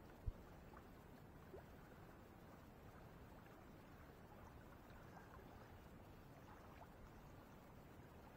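Near silence: a faint, steady background hiss of open-air ambience, broken by one short, low thump just after the start.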